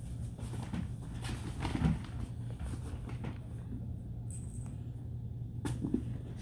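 Kittens play-wrestling: soft scuffling and light knocks of small bodies and paws, with one sharp click near the end, over a steady low hum.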